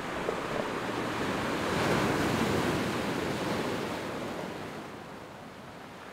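Sea surf washing onto a stony shore, a steady rush that swells about two seconds in and then ebbs away.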